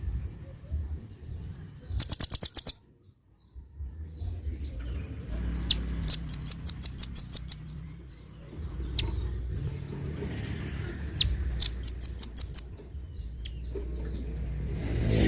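Velvet-fronted nuthatch calling: three quick rattling series of sharp, very high notes, each lasting about a second, over a low rumble.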